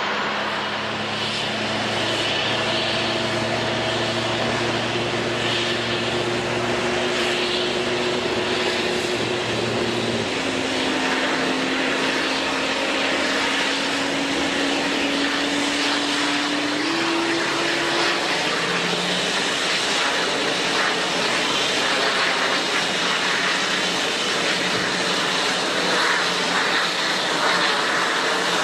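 Airbus A350 jet engines running steadily: a loud, even rush of jet noise with a few low steady tones that shift in pitch about a third and about halfway through.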